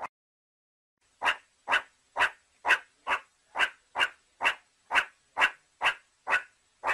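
Meerkat giving a long series of short, harsh bark-like calls, about two a second, after a pause of about a second.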